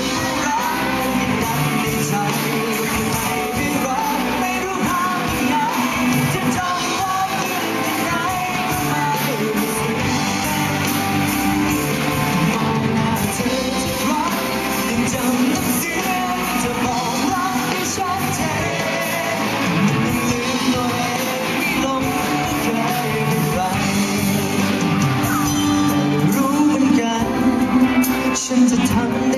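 Live band music with a singer performing a Thai pop song, amplified through a PA and echoing in a large hall.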